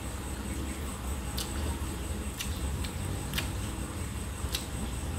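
Eating by hand: short, faint clicks about once a second as fingers gather food on a plate and the mouth chews, over a steady low hum.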